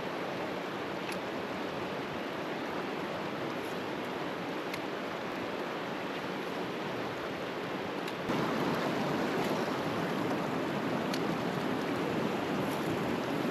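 Salmon River water rushing steadily, getting louder a little past eight seconds in.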